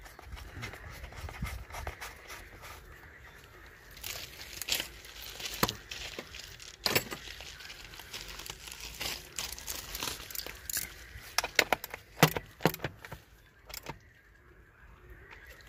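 Irregular metallic clicks and knocks of hand-tool work on a scooter, metal tools and a socket ratchet clinking against its frame and plastic covers, with a quick run of clicks about three-quarters of the way through.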